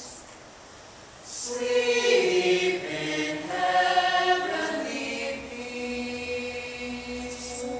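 Mixed youth choir singing in parts. After a quiet first second the voices come in together, move through several notes and settle into a held chord, with a sharp 's' sound near the end.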